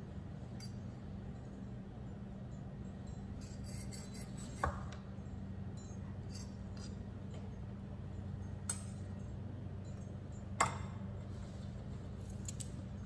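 Knife and fork clinking against a plastic cutting board and a plate while a hot dog is sliced: three sharp clinks with a brief ring, spaced a few seconds apart, over a steady low hum.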